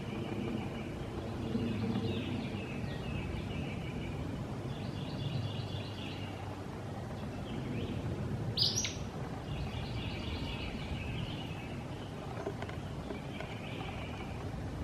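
Acadian flycatcher giving one sharp, high call a little past halfway through, the loudest sound. Softer bird song in repeated phrases of about a second sounds behind it, over a low steady rumble of background noise.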